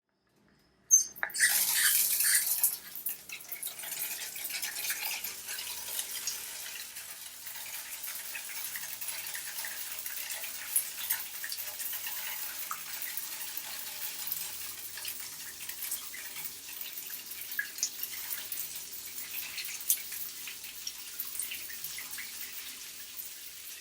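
Shower spray turned on about a second in, loudest for the first couple of seconds, then settling to a steady spray of water with scattered drips and splashes.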